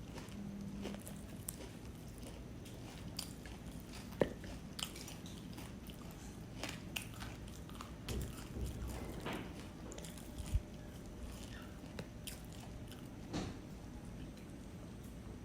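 A person chewing a mouthful of puffed rice (muri) with jackfruit, with irregular crisp crunches and small clicks.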